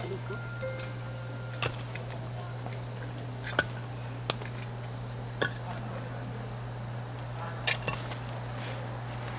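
A few short, scattered clicks and light knocks of dishes and utensils being handled, about five in all, over a steady low hum and a faint, high steady tone.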